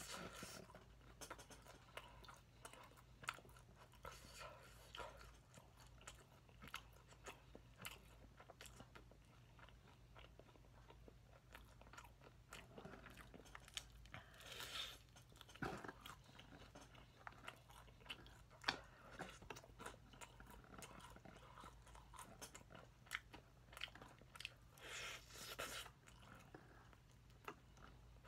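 Faint, close crunching and chewing of crispy honey-glazed fried chicken (Kyochon Honey Combo) being bitten and eaten, with many small crackles and a few louder crunchy bites.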